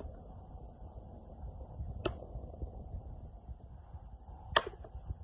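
Two tossed metal washers landing on washer boards about two and a half seconds apart, each a sharp clank with a short ring, the second the louder. Low wind rumble on the microphone runs under them.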